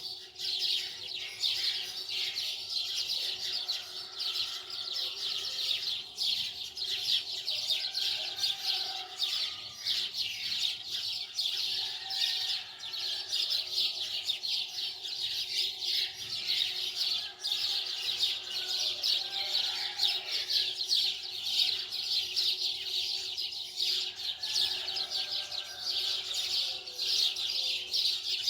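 A dense chorus of many small birds chirping continuously and rapidly.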